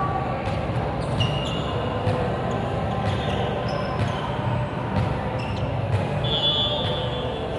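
Indoor volleyball court sounds in a large hall: sneakers squeaking briefly on the court floor several times, the longest squeak about six seconds in, with scattered knocks of a ball bouncing over a steady low hum.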